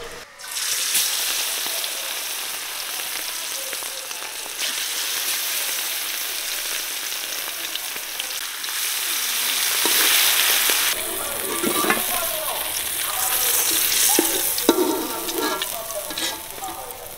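Chicken leg pieces sizzling as they fry in hot oil in a large metal wok. In the second half a metal spatula scrapes and knocks against the pan now and then as the pieces are turned.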